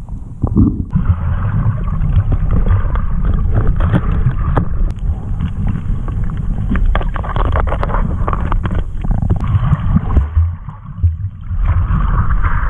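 Muffled rumble and sloshing of sea water around the camera, with scattered clicks and knocks.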